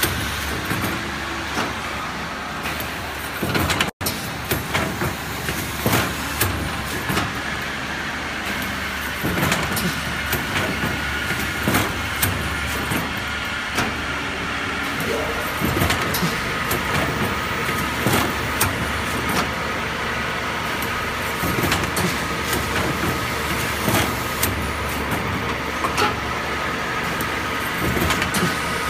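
Automatic paper-cup placing and cake-batter depositing machine running: a steady motor hum with a thin high whine, broken by frequent clicks and clacks of its air-driven placing and depositing heads and the metal trays. The sound cuts out for an instant about four seconds in.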